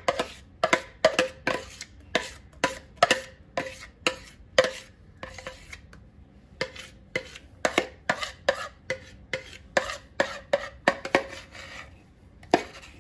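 A metal spoon scraping and knocking against a bowl in quick repeated strokes, about two or three a second, with a short pause about halfway, as thick whipped cream is scooped out of it.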